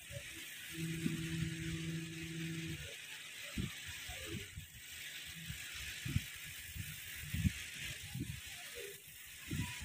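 CO2 laser cutting machine's gantry motors driving the laser head through a cutting path: a string of brief whirring pulses and short pitch glides as the head starts and stops, with a steady two-tone hum for about two seconds near the start. A constant hiss of air runs underneath.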